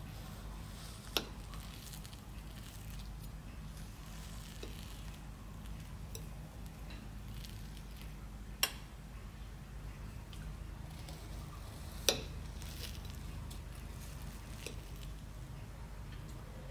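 Quiet kitchen handling sounds over a steady low hum: faint soft patter, with three sharp clicks spread across it.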